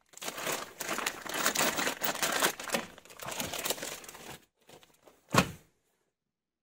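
Clear plastic packaging crinkling and rustling as hands unwrap and handle lathe chuck parts, then one sharp knock near the end.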